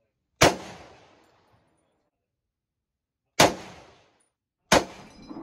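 Three shots from an M1 Garand rifle in .30-06, each a sharp crack with a short echoing tail. They come about half a second in, at about three and a half seconds, and again about a second later.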